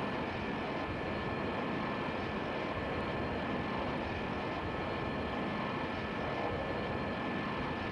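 Airbus A220-300 jet airliner on approach with its landing gear down, its engines making a steady, even noise with a thin high tone running through it.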